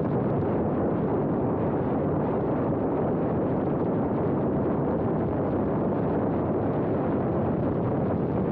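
Steady rush of airflow over the microphone of a camera riding on a radio-controlled E-flite Cessna 150 model airplane in flight.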